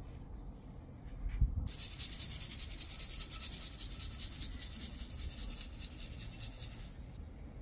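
Coarse salt shaken onto raw beef shanks: a steady gritty hiss with a fast, even pulse that cuts off about a second before the end. A dull thump comes just before it starts.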